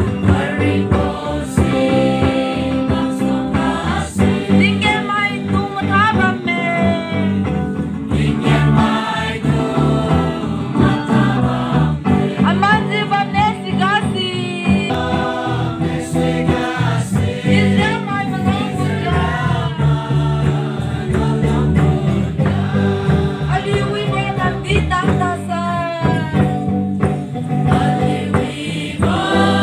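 A mixed group of men and women singing a song together into a microphone, with a steady low accompaniment underneath.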